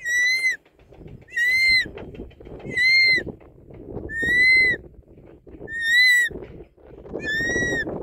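Short-toed snake eagle calling: a loud, clear whistled call, slightly arched in pitch and about half a second long, repeated six times, roughly every second and a half. A low, irregular noise runs beneath the calls.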